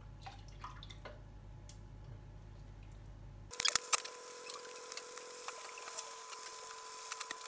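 Liver pieces frying in hot oil in a frying pan: a sudden, loud sizzle starts about three and a half seconds in and carries on with crackling pops from the spitting oil.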